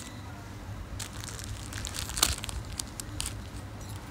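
Chopped green onions dropped by hand into a kadhai: irregular crunchy rustling and light clicks as the pieces land and shift, the strongest about two seconds in.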